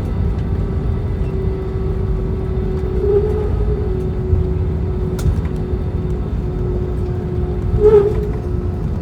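Cabin noise of an Airbus A320 with IAE V2527E engines: a steady low rumble with a constant engine tone running through it. A brief louder sound comes about eight seconds in.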